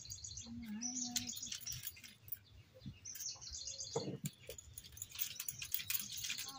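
Birds chirping in short repeated runs, with a hen's low call about a second in. Under them come scrapes and knocks of food being rubbed on a stone slab, with a louder knock past the middle.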